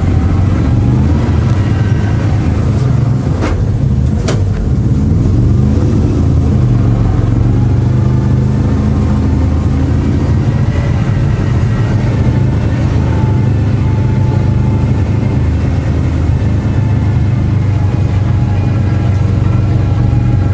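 BRDM-2 armoured scout car's engine running steadily under load as the vehicle drives on its four main wheels. There are a couple of sharp knocks about three and four seconds in.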